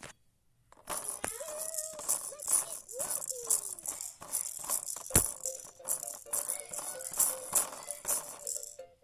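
The roller ball in the paw of a Fisher-Price Smart Stages Puppy walker toy rattling fast as it is spun by hand, starting about a second in. The toy's electronic sounds play over it, including tones that slide up and down, and there is one sharp knock about five seconds in.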